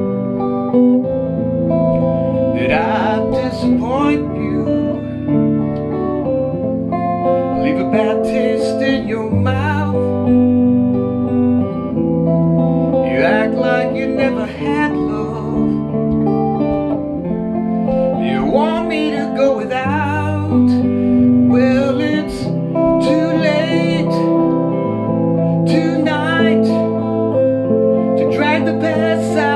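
Les Paul-style electric guitar playing a slow, repeating chord progression, with a melody line of bent notes and vibrato over it; the pattern comes round about every five seconds.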